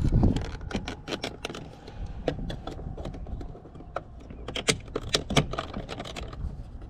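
Irregular small plastic clicks and ticks, with some scraping, as the retaining pins of a 4Runner passenger window switch are pried at to free it from the door panel; the pins keep snapping back in.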